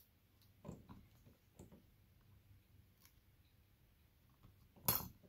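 Scattered small clicks and taps of tools and phone parts being handled during a smartphone screen repair, with one louder sharp click near the end.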